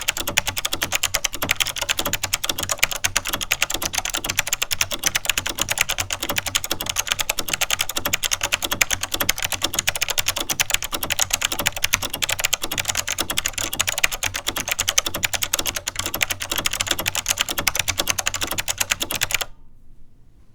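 Fast, continuous typing on a vintage Chicony KB-5181 keyboard with clicky Monterey switches (SMK Alps-mount), a dense run of sharp key clicks. The typing stops abruptly near the end.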